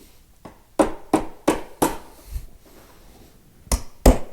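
Wooden dovetail joint of a drawer corner being tapped together with a hammer or mallet: four even taps about a second in, a pause, then a quicker, harder run of taps starting near the end.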